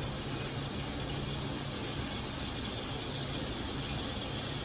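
Meat searing in a pan on medium-high heat: a steady sizzle, with a low steady hum beneath it.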